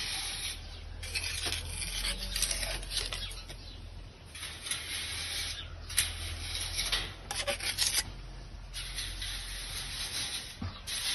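Repeated scraping strokes of a trowel working concrete mortar onto a mesh-covered frame, over a steady low hum that stops about ten seconds in.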